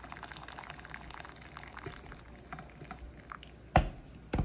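Boiled water pouring onto dry red kidney beans in a metal pot to soak them, the pour trailing off about halfway through. Two sharp knocks near the end.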